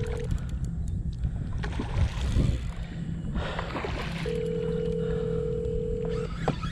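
Phone call ringback tone through the phone's speaker: a steady tone that ends just after the start and rings again for about two seconds from roughly four seconds in, the call ringing unanswered. Wind rumble on the microphone runs under it.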